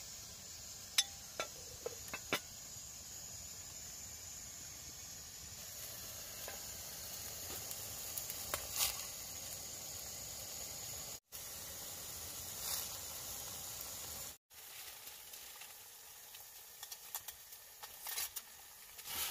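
Steady hiss of a pot of tomato soup simmering on a small camping stove, with a few light clinks of a metal spoon against the enamel pot in the first few seconds. The hiss breaks off briefly twice.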